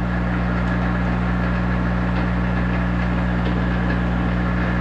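Monarch 10EE toolroom lathe running steadily with its spindle turning at about 500 rpm, a constant hum with the growl of the end gear train.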